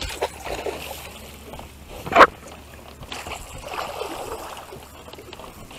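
Water splashing at the side of a boat as a hooked longnose gar is fought close in and brought to hand, with one sudden loud burst about two seconds in.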